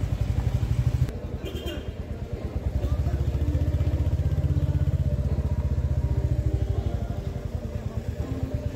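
Motorcycle engine running as the bike rides slowly through a street, with an even pulsing exhaust beat. The engine note drops about a second in, then builds again and eases off toward the end.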